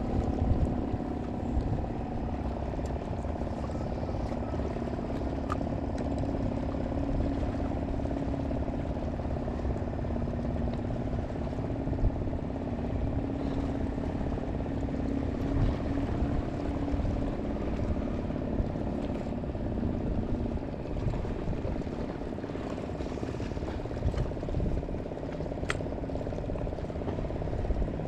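A motor hums steadily and fades out about twenty seconds in, over a continuous low rumbling noise, with an occasional faint click.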